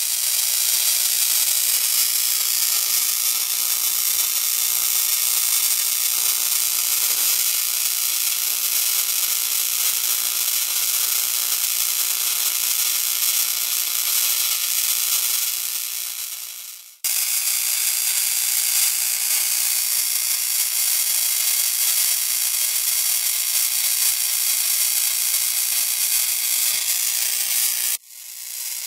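High-voltage discharge in an argon-filled glass tube between neodymium magnet electrodes, giving a steady high hiss. The sound fades out and cuts straight back in about 17 seconds in, and drops out briefly near the end.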